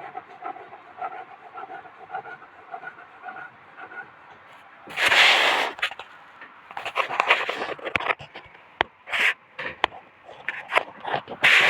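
A loud scraping noise for about a second, about five seconds in, then a run of shorter scraping and rubbing noises mixed with sharp clicks.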